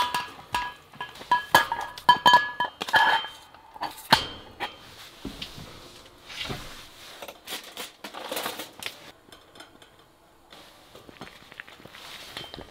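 Stainless steel pot and its glass-and-steel lid clinking and knocking as the lid is handled over the steaming pot, with short ringing metal tones. The clinks come thick and fast for the first few seconds, then thin out to occasional softer knocks and handling.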